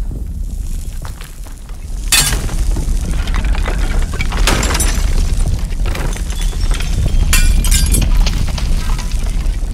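Crashing, shattering debris over a steady deep rumble: a sharp crash about two seconds in, another at around four and a half seconds, and a cluster of breaking crashes near the end.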